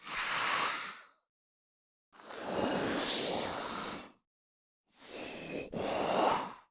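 Monster breathing sound effect: three breathy, noisy breaths, each one to two seconds long, with dead silence between them. The third breath dips briefly in the middle.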